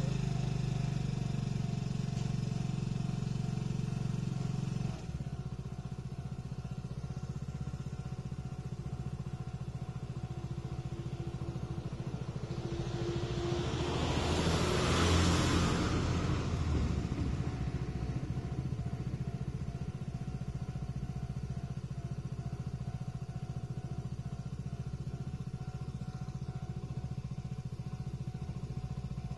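A motor vehicle passes by, growing louder to a peak about halfway through and then fading, over a steady low background hum that drops in level abruptly about five seconds in.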